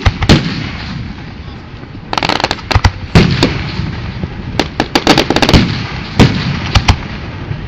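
Fireworks going off: a string of loud sharp bangs, with rapid runs of crackling reports about two seconds in and again around five seconds.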